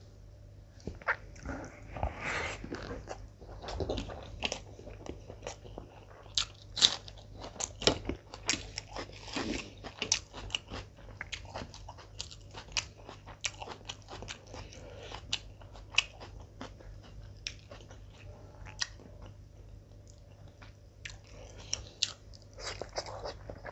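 Close-up chewing of mutton biryani and chicken: wet mouth smacks and crunches, an irregular run of sharp clicks.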